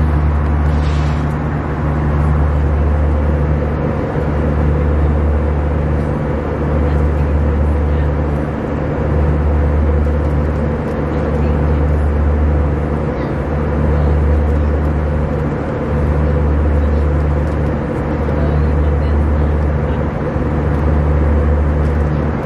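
Airliner cabin noise: the steady low drone of the jet engines and air, swelling and easing about every two seconds.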